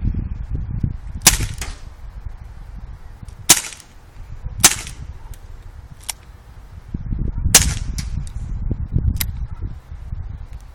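Dan Wesson 8-inch CO2 revolver in 4.5 mm (.177) firing four sharp shots at irregular intervals, with a few fainter clicks between them. Wind rumbles on the microphone underneath.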